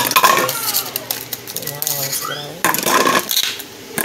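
Kitchen clatter: dishes and utensils clinking and knocking, a burst of it at the start and another about three seconds in.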